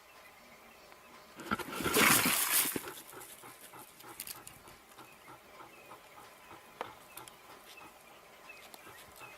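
A loud, harsh animal cry lasting about a second and a half, followed by faint clicks and small repeated chirps.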